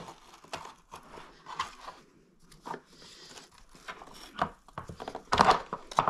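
Plastic clicking, knocking and rustling as a replacement brush roll is pressed down into the base of a Bissell Power Force Helix upright vacuum, with a louder cluster of knocks about five and a half seconds in as one end of the roll seats.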